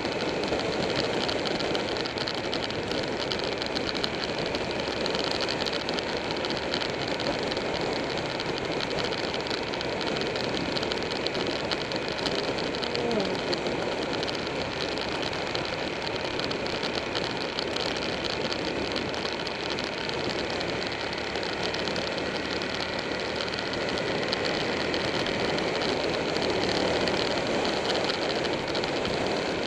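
Buell 1125R V-twin motorcycle engine running steadily at road speed, nearly buried under heavy wind rush on the bike-mounted microphone.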